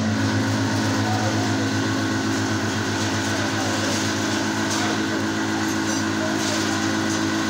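A motor running steadily: a low, pulsing hum with several steady tones above it, starting at the beginning.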